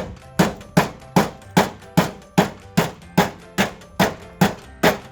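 Sharp, evenly spaced strikes, about two and a half a second, over background music with steady tones; the strikes stop just after the end while the music carries on.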